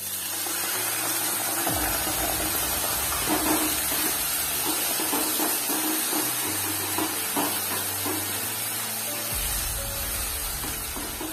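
Water poured onto potato sticks frying in hot oil in a kadai, setting off a steady hissing sizzle that starts at once and slowly eases near the end, with a spatula knocking and scraping as the potatoes are stirred.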